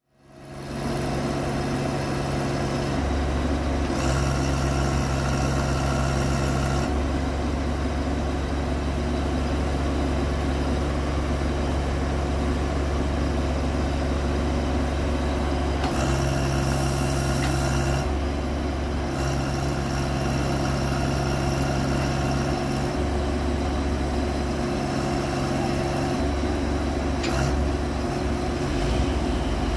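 Service truck engine running steadily, driving a VMAC Multifunction underhood power system for the truck's crane. Its low hum and a hiss above it change in several spells of a few seconds.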